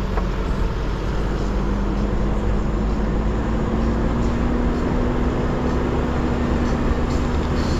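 Toyota Hilux pickup driving on a gravel track: a steady engine hum whose note rises slowly, under constant tyre and road noise.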